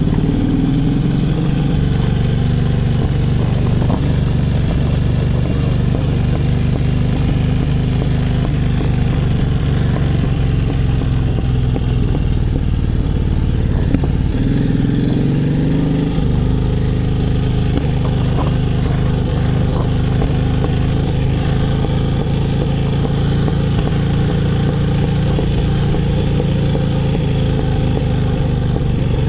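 Brough Superior SS100's V-twin engine running while the motorcycle is ridden, a steady note that swells briefly twice, about a second in and again around the middle.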